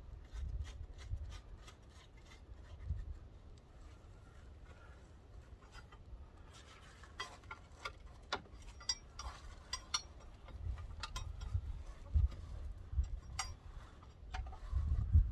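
Light clicks, clinks and rubbing of metal parts being handled on a skid steer track, scattered at first and coming thicker from about halfway through.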